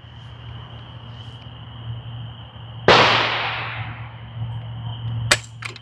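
Trigger of a Hatsan Bulltac semi-auto shotgun breaking under a pull gauge: one sudden sharp metallic snap about three seconds in as the hammer falls on dry fire, ringing away over about a second. A smaller click follows near the end. The trigger breaks at a little over 3.5 pounds.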